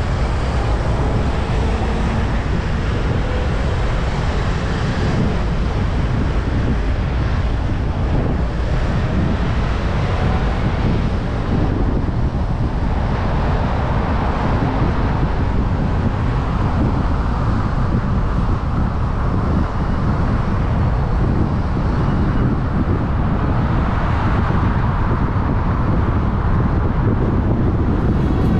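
Steady road noise of a car driving through city traffic: a low, even rumble of tyres and traffic with wind on the microphone.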